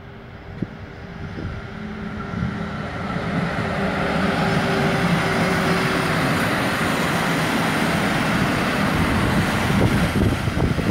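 PESA Gama SU160 diesel locomotive approaching and passing with a passenger train: its engine drone grows louder over the first four seconds and then holds steady. Near the end the clatter of the coaches' wheels over the rails comes in as they roll by.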